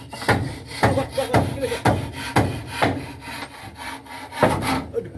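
Handsaw cutting through a wooden board, in regular push-pull strokes about two a second, with a brief pause about three and a half seconds in before the strokes resume.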